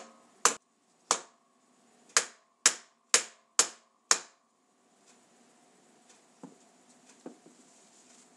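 Hammer blows on a block of wood, driving a sealed bearing into an American bottom bracket cup on a BMX frame: seven sharp taps about half a second apart, with a pause after the second, each leaving a faint ring. They stop about four seconds in, leaving only a couple of faint knocks.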